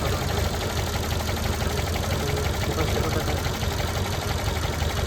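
Tata Zest's four-cylinder petrol engine idling with a misfire, the engine 'missing' on cylinder 4.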